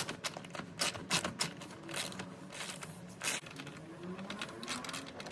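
Scattered, irregular clicks, taps and light scrapes of hand tools and parts being handled under the hood.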